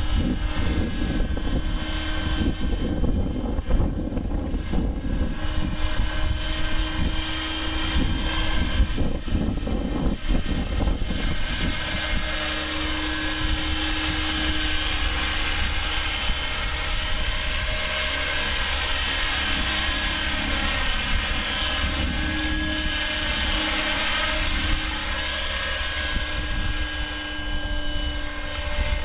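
Align T-Rex 600 radio-controlled helicopter in flight: a steady, many-toned whine from its rotor and drive, shifting slightly in pitch as it manoeuvres. Wind buffets the microphone with a low rumble, heaviest in the first ten seconds or so.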